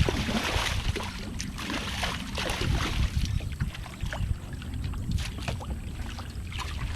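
Sounds of a fishing kayak on the water: water splashing and sloshing, with scattered light knocks against the plastic hull and a steady low rumble.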